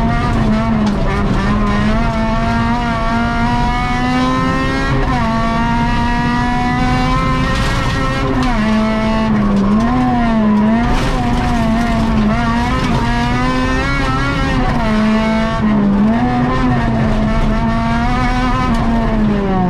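Honda Civic VTi rally car's four-cylinder VTEC engine heard from inside the cabin under hard acceleration. The revs climb steadily, drop suddenly at a gear change about five seconds in, climb again, then rise and fall over and over as the driver lifts and accelerates through a run of corners.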